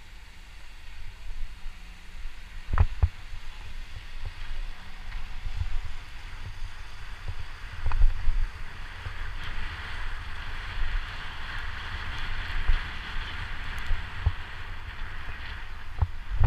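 Low rumble of a vehicle driving along a town street, heard from inside the vehicle, with a few sharp knocks as it goes over bumps. A hiss builds up about nine seconds in and fades near the end.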